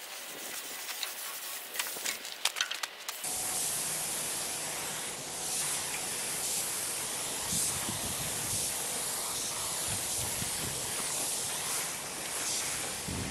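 Pressure-pot spray gun hissing steadily as it sprays primer in back-and-forth passes, starting about three seconds in. Before that, a few light clicks and rustles.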